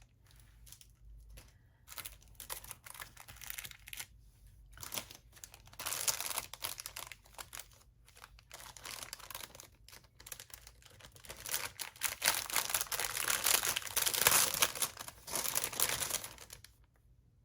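Packaging crinkling and rustling as items from a box are handled, coming and going irregularly and loudest a few seconds before the end.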